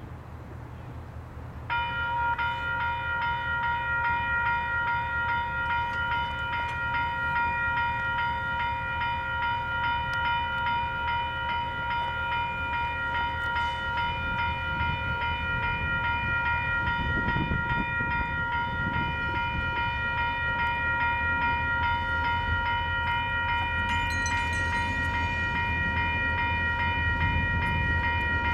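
Grade-crossing warning bell that switches on about two seconds in and rings steadily as a diesel locomotive approaches. Under it, the locomotive's engine rumble grows louder in the second half.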